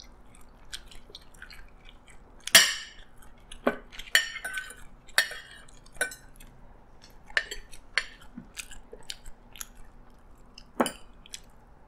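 Metal spoon and fork clinking and scraping against a ceramic plate while fried chicken is cut: a dozen or so short, sharp clinks at uneven intervals, the loudest about two and a half seconds in, with chewing between them.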